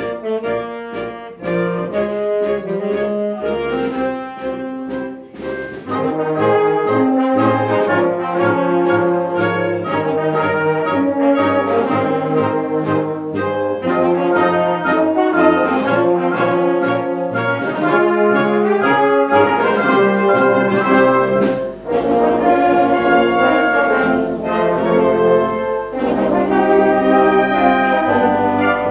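Concert band playing: brass and woodwinds together over struck percussion beats in a lively, rhythmic passage that swells louder about six seconds in.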